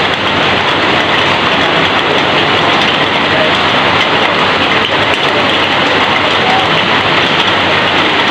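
Heavy rain falling and pouring off the edge of a corrugated metal roof: a loud, dense, even hiss that does not let up.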